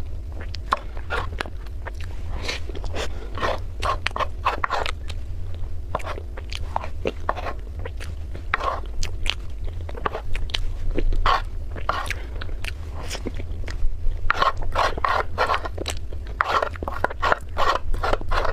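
Close-miked chewing of chocolate mousse and cream cake: quick clusters of wet mouth clicks and smacks, over a steady low hum.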